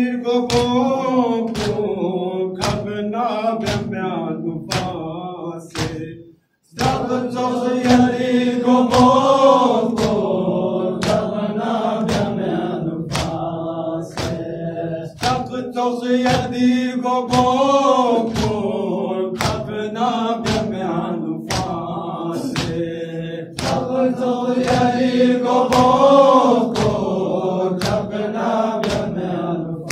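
Men's voices chanting a Balti noha (Shia lament) together, over a steady beat of open-hand slaps on the chest (matam). The sound cuts out for an instant about six seconds in.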